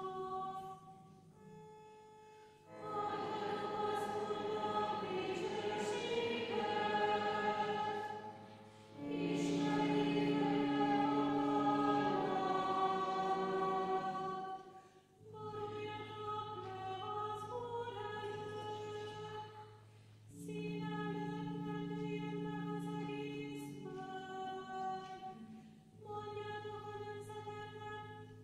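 Church choir singing a hymn in held, chord-like phrases a few seconds long, with short breaks between the phrases.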